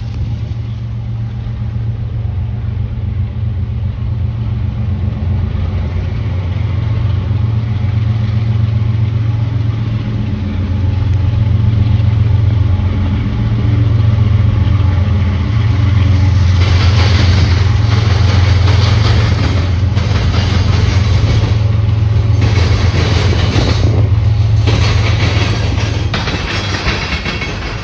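Freight train passing: the diesel locomotives' steady engine rumble, with a hissing rush of steel wheels on rail from the cars joining about halfway through.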